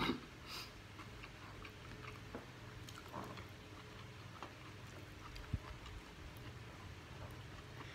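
Quiet eating sounds: people chewing and picking fried fish and rice off china plates with their fingers, with scattered small clicks and smacks, a short burst at the very start and a sharp click about five and a half seconds in, over a low steady hum.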